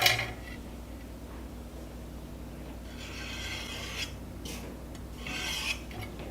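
A sharp metal clank, then a few irregular scraping strokes of a file rasping on metal.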